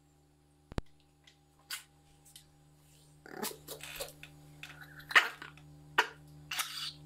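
Small terrier growling in short bursts from about three seconds in while it holds a raw bone, guarding it; before that only a couple of faint clicks and scrapes from the gnawing.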